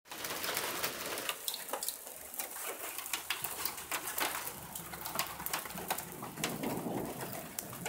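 Hailstones striking a vehicle's roof and windshield in irregular sharp clicks and taps, several a second, over a steady hiss of rain.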